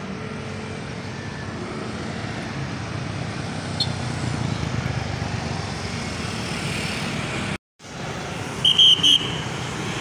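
Road traffic running steadily, swelling as a vehicle passes in the middle. The sound cuts out for a moment near the end, then two short, high beeps follow.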